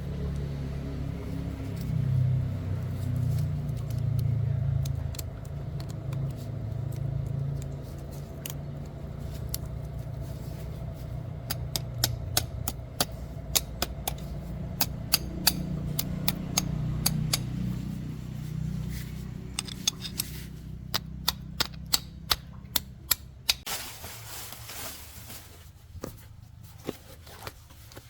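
Truck engine running with a low, uneven rumble that fades away about twenty seconds in, joined over the second half by a series of sharp metallic clicks and ticks.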